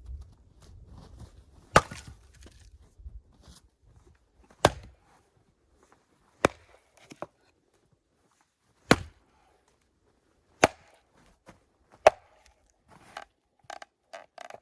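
Axe chopping firewood: six sharp strikes about two seconds apart, with a few lighter knocks near the end.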